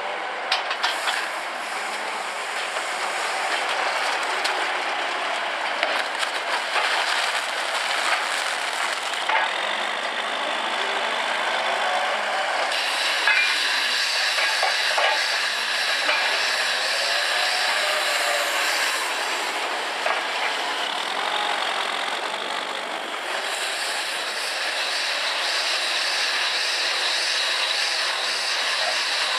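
Farm machinery working: a bale wrapper's machinery, then a Manitou telehandler's diesel engine running as it manoeuvres, a steady mechanical din. The sound changes abruptly several times and has a few sharp knocks.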